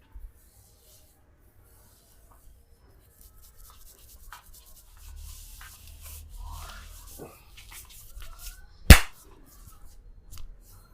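Hands rubbing over skin and hair during a head massage, quiet and irregular, then a single loud, sharp impact about nine seconds in.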